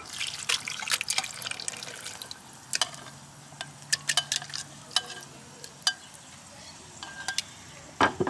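Tomatoes and liquid poured from a pot into a glass blender jar, splashing for about the first second, followed by scattered clicks and scrapes of metal tongs against the pot and jar. A louder knock near the end as the pot is set down on the wooden board.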